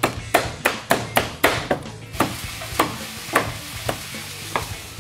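Knife chopping through a raw whole chicken on a cutting board: quick, even strikes about three a second, slowing to a few scattered chops after about two seconds.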